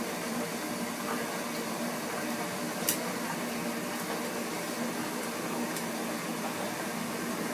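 Steady hiss of a gas flame heating a pan of water that holds a can of melting wax, the water simmering, with one small click about three seconds in.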